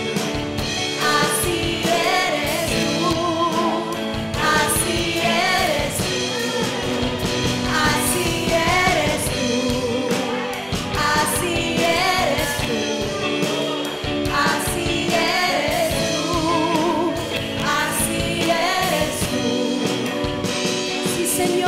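Contemporary worship music performed live: a singer's voice with vibrato over a band, with drum and cymbal hits throughout.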